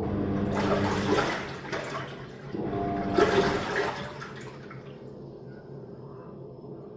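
Living & Co 5.5 kg top-load washing machine taking in water during its rinse cycle: two bursts of rushing water, the first about two seconds long and the second about a second and a half, then quieter.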